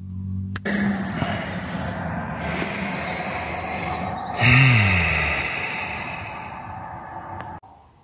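The 2006 Peugeot Partner van's engine running, heard from the driver's seat as a steady rush of noise. About halfway in it gets suddenly louder and a tone falls in pitch over about a second, then the sound slowly settles.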